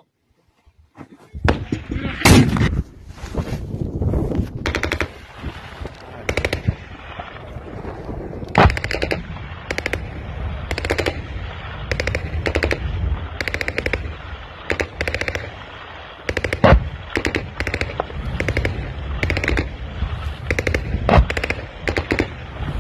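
Automatic gunfire in short, closely spaced bursts that go on and on, with a few louder single bangs standing out above it.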